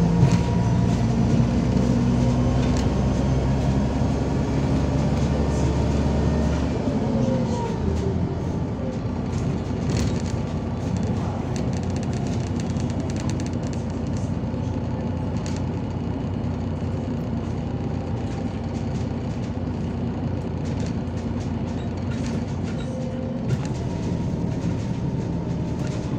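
Inside a MAZ-203 city bus on the move: the diesel engine pulls with a deep drone for about the first seven seconds, then drops away with a short falling whine, and the bus rolls on with steady road and cabin rumble and occasional rattles.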